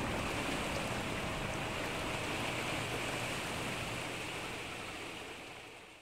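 Steady rushing river-water ambience with the faint low hum of a distant motorboat engine, fading out near the end.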